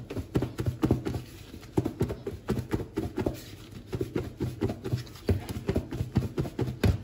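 Chicken strips and flour being shaken hard in a lidded plastic tub: a fast, uneven run of thuds and knocks, several a second, as the pieces are thrown against the walls and lid.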